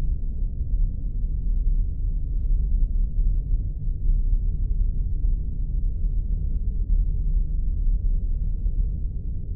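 Spaceship sound effect: a steady, deep engine rumble with no change in pitch or level.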